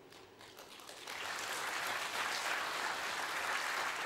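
Audience applauding in a theatre hall: a few scattered claps that swell about a second in into full, steady applause.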